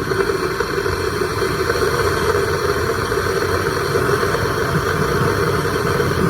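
Air blower running steadily, forcing air through a homemade jet engine's combustion chamber: a loud, even rushing drone with no change.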